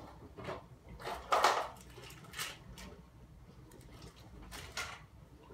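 Unpacking noises from a hard plastic tester carry case: several short separate rustles, scrapes and light knocks as the top tray is lifted out and bagged parts are handled, the loudest about a second and a half in.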